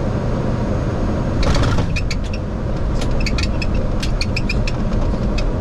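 Airliner cockpit noise during the landing rollout: a steady, loud low rumble of the wheels and engines on the runway, with a run of short, sharp clicks and rattles from about a second and a half in.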